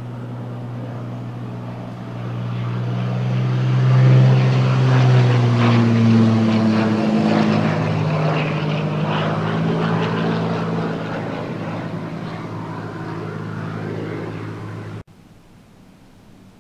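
Propeller aircraft flying past: a steady engine drone that grows louder, drops in pitch as it passes, then cuts off suddenly near the end.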